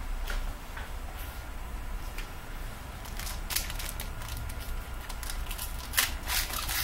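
Foil wrapper of a 2014 Panini Prizm World Cup trading-card pack crinkling and tearing as it is handled and opened by hand, a dense run of crackles starting about halfway in.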